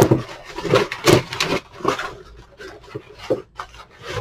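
Crumpled brown kraft packing paper rustling and crinkling as a hand digs through it in a cardboard shipping box and pulls it out. It comes in irregular bursts, thickest in the first second and a half.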